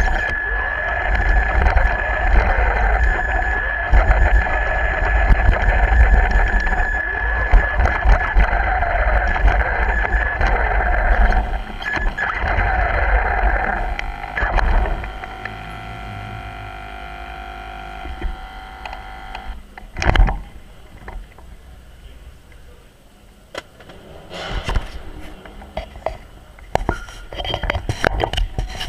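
Small RC car's electric motor and gearing whining, the pitch rising and falling with speed, over a loud rumble of its wheels rolling on concrete. The whine drops away about halfway through, followed by a thump and scattered knocks and clatter.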